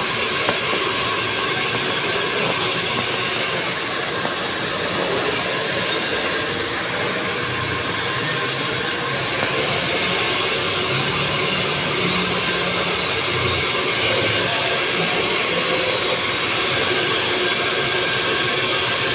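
Handheld hair dryer blowing steadily as hair is blow-dried for a rebonding treatment: a continuous, even whoosh of air and motor.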